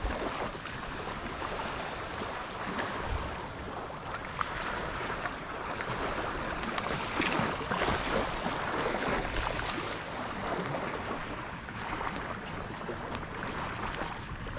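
Steady wind across the microphone and small waves washing onto a sandy beach, with occasional splashes from a hooked fish thrashing in the shallows.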